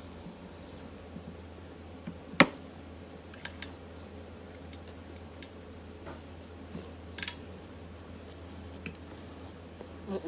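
Eating sounds: a few short clicks and soft knocks, the loudest about two and a half seconds in, over a steady low hum.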